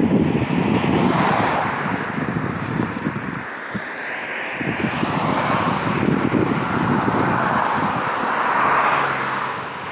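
Vehicle noise swelling and fading three times over a rough low rumble.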